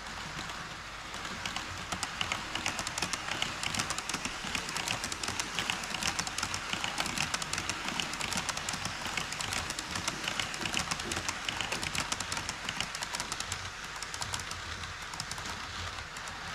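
HO scale model train rolling along KATO Unitrack, its wheels making a rapid, dense clatter of fine clicks over a steady hiss. It grows louder about a second and a half in and eases off near the end as the train passes.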